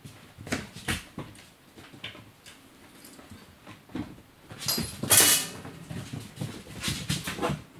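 Irregular rustling, taps and scrabbling of British Shorthair kittens playing with a string-and-feather wand toy, with one louder rustling rush about five seconds in.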